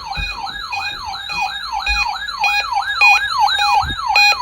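Weather radio receiver's warning alarm going off for a NOAA Weather Radio required test: a siren tone that sweeps up and drops back about three times a second, with short beeps cutting in repeatedly and getting louder toward the end.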